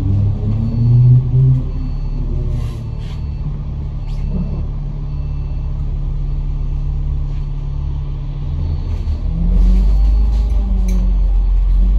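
Bus engine and drivetrain heard from inside the cabin, its note rising and falling with speed, with a few short rattles. About nine and a half seconds in the engine note drops lower and grows louder as the bus pulls harder.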